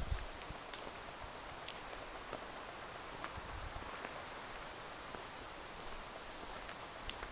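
Woodland ambience: a steady soft hiss with a few scattered light clicks, and a faint rapid high-pitched ticking for a second or two around the middle.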